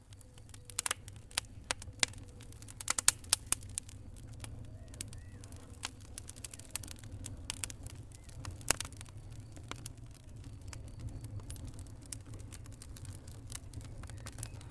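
Wood fire in a fireplace crackling, with irregular sharp pops and snaps over a steady low rumble of the flames. A burst of louder pops comes about two to three and a half seconds in, and another single loud snap comes near nine seconds.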